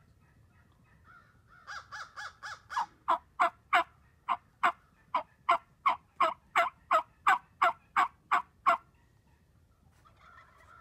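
A long series of turkey yelps, about twenty notes at roughly three a second. The first few are soft, the rest are loud and raspy, and they stop a couple of seconds before the end.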